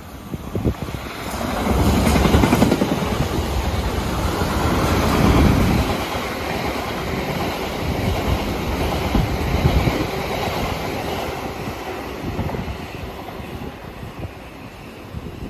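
A South Western Railway passenger train running along the rails past the platform. It grows loud about a second and a half in, with a heavy rumble of wheels, and slowly dies away over the last few seconds.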